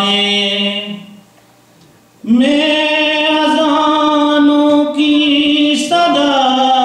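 A man's solo, unaccompanied voice chanting a devotional kalam in long held notes. A phrase fades out about a second in, there is a short pause for breath, then one note is held steady for several seconds and a new phrase begins near the end.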